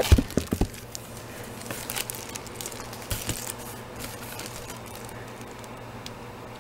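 Crafting supplies handled in a cardboard box: a few knocks about a second in, then light crinkling of cellophane packaging around a paper pack, settling to a faint steady hum.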